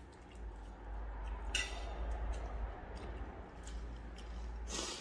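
A person eating with her hands: chewing a mouthful of rice and pulling apart fried chicken, with two sharp clicks, one a little over a second and a half in and one near the end. A low steady hum runs underneath.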